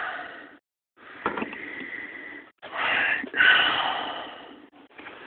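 A person breathing heavily close to the microphone, three long breaths in and out, with a faint click of handling about a second in.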